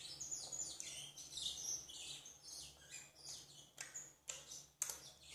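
Small birds chirping, a run of quick high falling chirps repeated throughout, with a couple of sharp clicks about four and five seconds in.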